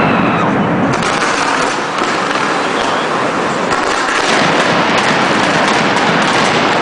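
Fireworks going off in a loud, continuous crackle of many small rapid bangs with no break.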